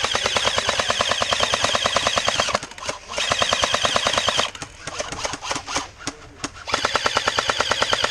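Airsoft automatic electric gun firing long, rapid full-auto bursts. There is a short break about two and a half seconds in, then scattered single shots, and a sustained burst again from about seven seconds.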